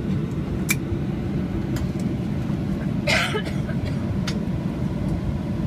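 Cabin noise of a Boeing 737-800 with CFM56-7B26 engines running at taxi idle, a steady low rumble heard from inside the cabin. A sharp click comes just under a second in and a short hiss about three seconds in.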